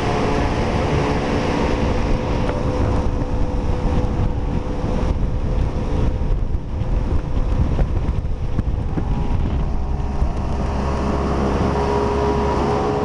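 Jet ski engine running with a steady whine, under heavy wind noise on the microphone; the whine fades through the middle and comes back strongly near the end.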